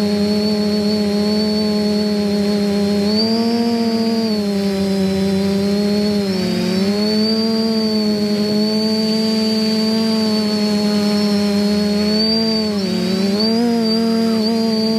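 TBS-frame quadcopter's brushless motors and propellers droning steadily, heard from the onboard camera, with a thin high whine above. The pitch dips and recovers with throttle changes, about six seconds in and again near thirteen seconds.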